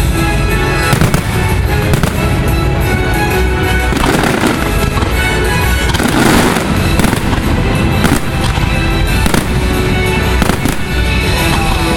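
Fireworks display: repeated shell bursts and crackling, heaviest about four seconds in and again around six to seven seconds, over loud show soundtrack music that plays throughout.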